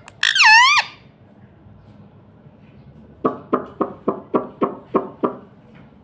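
Indian ringneck parakeet giving one loud squawk with a wavering pitch right at the start, then, about three seconds in, a run of eight short calls, evenly spaced at about four a second.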